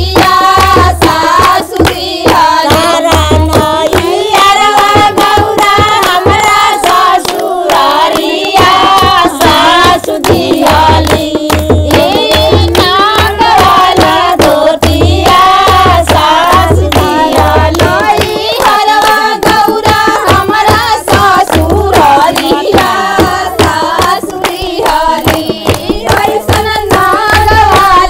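A group of women singing a Bhojpuri Shiv charcha devotional song together, with steady rhythmic hand-clapping and low drum beats underneath.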